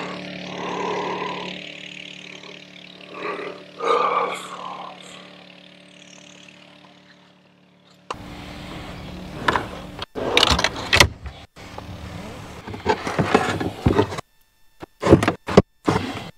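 A man's long, loud yawn over a steady low hum. After a cut, a run of irregular knocks and clatters as gear is handled in a ute's canopy drawer.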